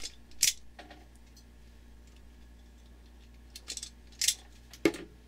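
Sharp clicks and snips of hand tools on a hookup wire, a wire stripper and then needle-nose pliers: three clicks in the first second and three more near the end. A faint low hum runs underneath.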